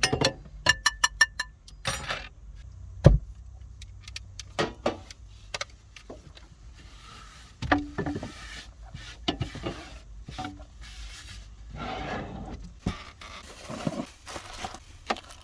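Things being handled in a cramped space. A quick run of ringing clinks like dishes or utensils comes first, then scattered knocks and bumps with bursts of rustling.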